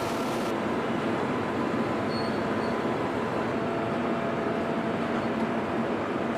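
Steady industrial machinery rumble and hum with a few faint whines, typical of a heavy forging shop.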